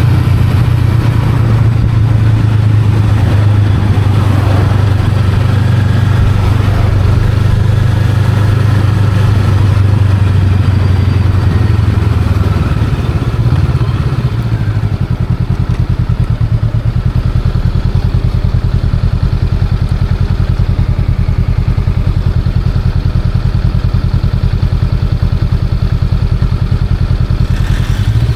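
Honda Rebel 500's parallel-twin engine running steadily under way, then settling about halfway through to a lower, evenly pulsing idle, and picking up again near the end.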